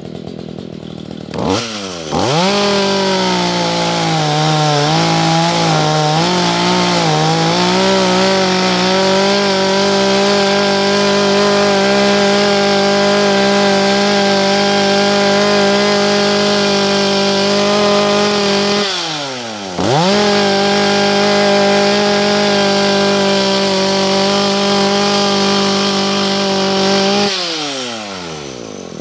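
Two-stroke chainsaw revving up from idle to full throttle about a second and a half in and held there while cutting wood, its pitch sagging and wavering for several seconds under load. It drops off briefly about two-thirds of the way through, revs straight back up, and falls back to idle near the end.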